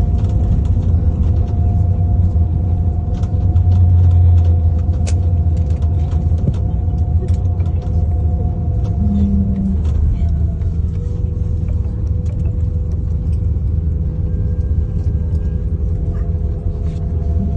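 Airbus A330-900neo rolling out and braking after landing: a steady low rumble with a faint steady whine over it that shifts in pitch partway through, and scattered light clicks.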